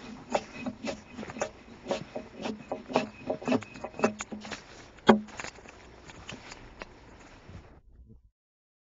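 Axe blows striking an oak log as a railroad tie is hewn, a quick run of sharp knocks about two a second, the hardest about five seconds in. The blows grow lighter after that, and the sound cuts off near the end.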